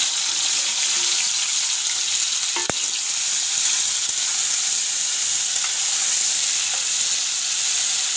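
Small whole new potatoes sizzling in hot oil in a kadhai while a spatula stirs them, a steady frying hiss. One sharp knock sounds about two and a half seconds in.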